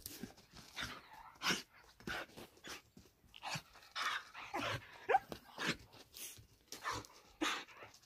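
A dog close by, with a short rising whine about five seconds in, over irregular crunching footsteps on a dirt and gravel lane.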